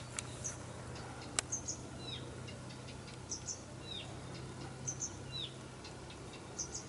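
Small songbirds calling: a short, downward-curving chirp repeated about once a second, with quick paired higher chirps in between. Two sharp clicks come in the first second and a half, over a faint steady low hum.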